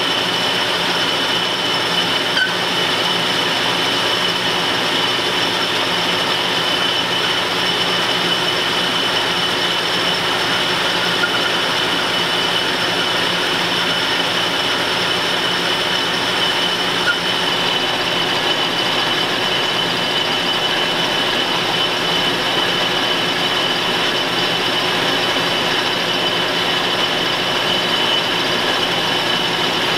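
Metal lathe running, a carbide tool turning down a grade 8 steel bolt under flood coolant: a steady machine drone with a constant high whine.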